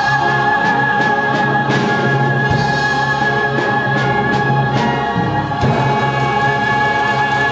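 A musical theatre cast singing together with instrumental accompaniment in the closing number of a show, holding long sustained notes over a steady beat.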